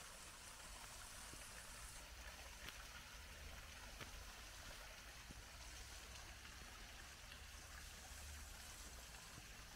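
Faint, steady trickle of running water, with a few light clicks.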